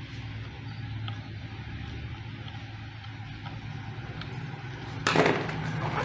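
Hand screwdriver turning a screw into a wooden jig: faint ticks and creaks over a steady low hum, then one brief loud scrape about five seconds in.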